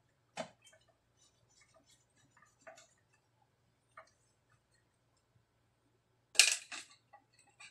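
Small clicks and taps of a screwdriver and screws being worked inside an open power amplifier's metal chassis, with a louder clatter of handled tools about six and a half seconds in.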